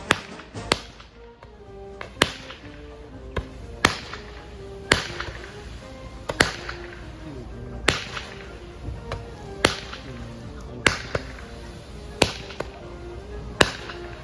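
Music with a slow stepping melody, punctuated by sharp cracks about every one and a half seconds.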